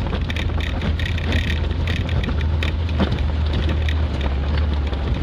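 A 1992 Suzuki Sierra's engine running steadily, heard from inside the cabin as a low hum, with a few short knocks and rattles from the vehicle.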